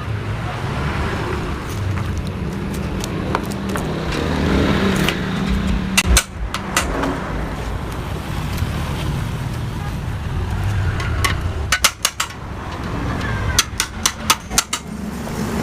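Sharp metal clinks and taps from hand tools on a Yamaha RX-King exhaust pipe being cut open and hollowed out. They come scattered, then in a quick run near the end, over a steady low rumble.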